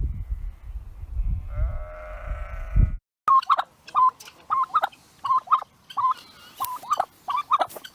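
A bleating animal, such as a sheep or goat, gives one pitched bleat over a low rumble. After an abrupt cut, a different animal gives a quick string of short calls, about two a second.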